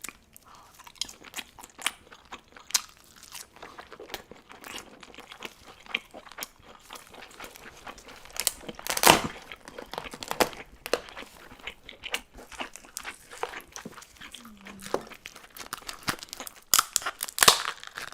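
Close-miked eating sounds: a person chewing and crunching seafood, with irregular sharp clicks and a few louder crackles.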